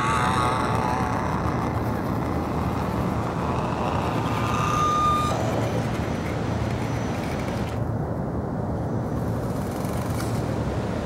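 Axial Jeep Rubicon RC rock crawler's small electric motor whining as the truck crawls over rock, the whine wavering at first and then holding steady for about a second and a half near the middle, over a loud, steady rushing background.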